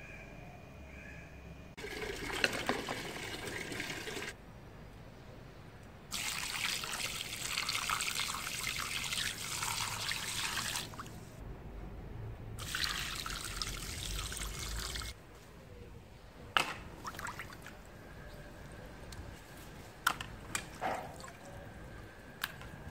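Water splashing and running over raw chicken pieces as they are washed in a bowl, in three stretches of a few seconds each. Later come a few short, sharp knocks from handling.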